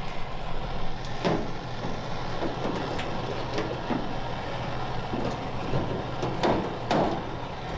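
Metal bodywork on a car's quarter panel: scattered sharp scrapes and knocks over a steady low hum.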